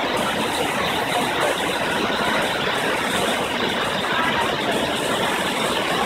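Dudhsagar Falls, a large waterfall pouring down rock into a pool, making a steady, even rushing noise that does not change.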